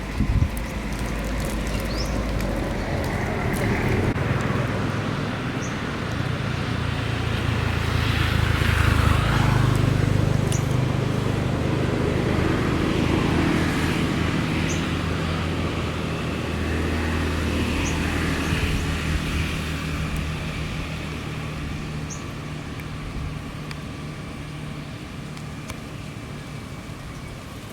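A motor vehicle's engine running, a low hum that swells to its loudest about nine seconds in and then slowly fades.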